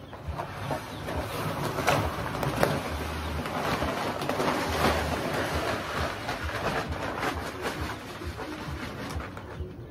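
Loose contents of a large sack being poured out into a chick brooder ring: a steady rustling, crackling pour, heaviest in the middle and easing off toward the end.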